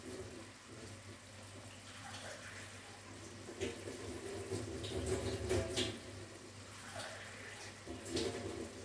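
Sugar syrup boiling hard in a wok, bubbling with irregular small pops, over a low steady hum.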